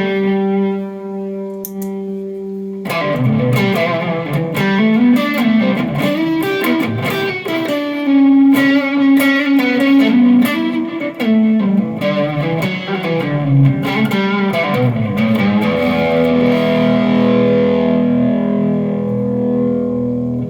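Electric guitar played through a Mor-Gain Dumbbell effects pedal. A chord rings for about three seconds, then a melodic line with string bends follows, ending on a long sustained chord.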